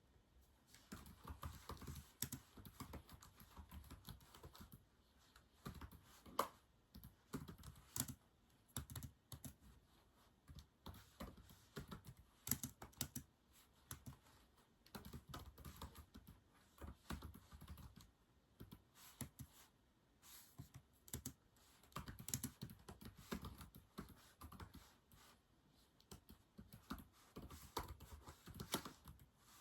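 Typing on a keyboard: quick runs of keystrokes with short pauses between them, fairly faint.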